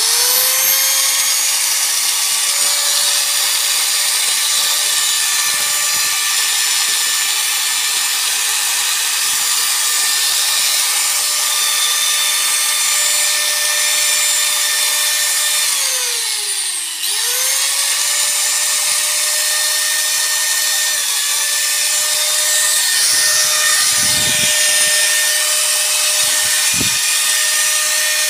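Bosch 6-100 angle grinder motor running free on its new bearings and carbon brushes: it spins up at the start to a steady high whine, slows briefly about two-thirds of the way through and picks up speed again.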